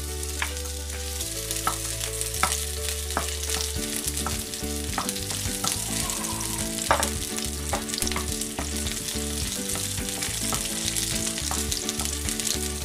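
Sliced onion and garlic sizzling in hot oil in a nonstick wok, sautéing. A wooden spatula stirs them, knocking and scraping against the pan now and then.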